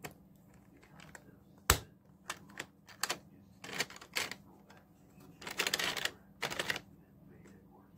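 Lego bricks clicking and tapping as small plastic pieces are handled and pressed onto a build. There are a dozen or so sharp plastic clicks, the loudest just before two seconds in, with a quicker run of clicks around six seconds in.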